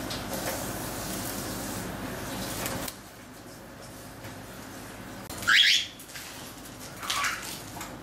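Cockatiel giving two short calls: a loud, quick upward-sweeping call a little past the middle, and a fainter one about a second and a half later. Before them a steady hiss runs and cuts off suddenly about three seconds in.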